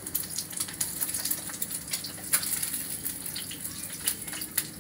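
Food frying in a skillet on a gas stove: a steady sizzle with scattered crackling pops.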